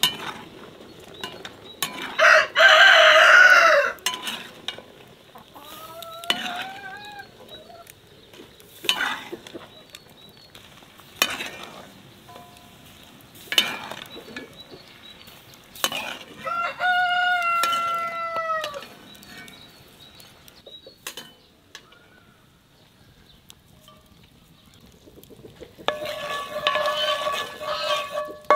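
A rooster crowing, loudly about two seconds in and again, long and falling at the end, about sixteen seconds in, over scattered knocks and clinks of a spoon stirring in a pan.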